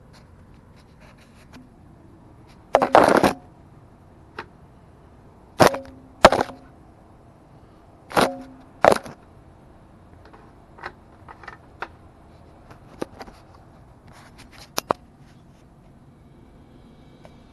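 A series of sharp metal clanks and knocks from work under a VW Beetle engine. The loudest few come in the first half and some have a brief ringing tone after them; lighter clicks and taps follow.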